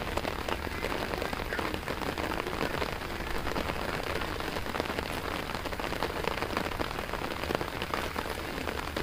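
Steady rain falling on a flooded rice field, a dense even hiss of many small drops striking the water.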